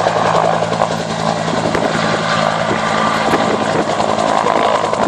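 Bell UH-1 Huey helicopter in flight, the steady beat of its two-blade main rotor over turbine noise.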